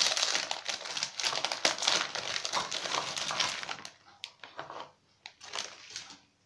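Foil-lined plastic wrapper of an Oreo biscuit roll crinkling as cookies are pulled out of it by hand. After about four seconds the crinkling stops, leaving a few light clicks as the cookies are set down on a wooden board.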